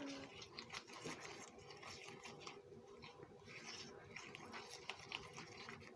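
Faint rustling and small scattered clicks of objects being handled, over quiet room tone.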